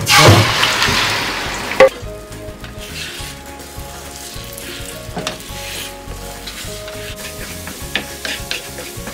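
Egg mixture with potato and tomato poured into a hot oiled pan: a loud sizzle that fades over about two seconds, with a sharp knock near the two-second mark. Then softer frying as a wooden spatula stirs and scrapes the eggs around the pan.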